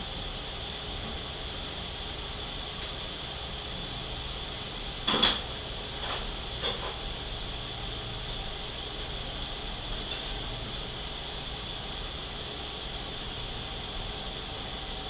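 Steady high hiss with a few light metallic clicks and knocks about five to seven seconds in: automatic transmission parts being handled during teardown.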